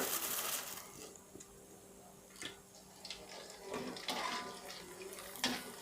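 Emping melinjo crackers frying in shallow oil in a frying pan: a hissing sizzle, loudest in the first second and then fainter, with a few light clicks.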